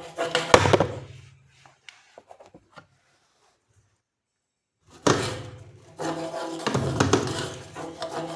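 Background music with a drum beat, cutting out for about three seconds in the middle, with only a few faint ticks in the gap.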